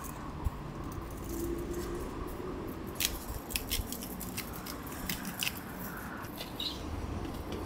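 Light handling noise over a low room hum, with a run of sharp, irregular clicks from about three to five and a half seconds in as a small glass seasoning shaker is shaken over butter slices.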